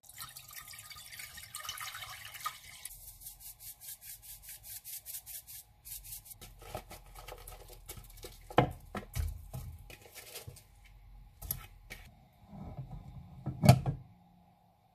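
Water poured into an empty saucepan, splashing, then breaking into a run of quick drips. About eight seconds in, broccoli florets are dropped into the water with several knocks, and near the end a glass lid is set on the pot with a sharp clank, the loudest sound.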